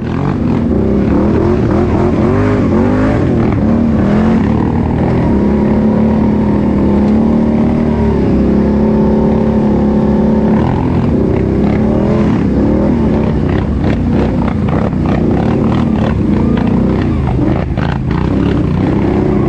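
ATV engine running under load, revving up and down over and over, its pitch held steady for a few seconds in the middle, with a few sharp knocks near the end.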